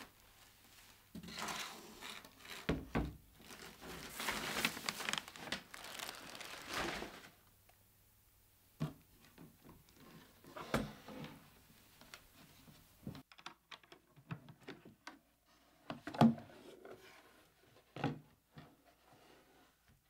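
Plastic wrapping crinkling and rustling as it is handled. After that, a few separate thumps and clicks come as a typewriter's hard case is handled and set down, the loudest about two-thirds of the way through.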